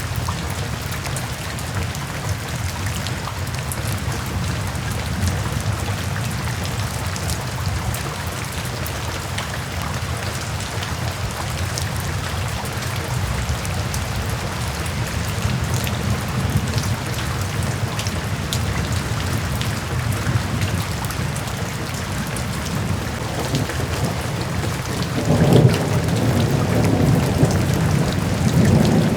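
Steady rain falling, with scattered drop ticks over a continuous patter and a low rumble of thunder underneath. The thunder swells louder about 25 seconds in and again near the end.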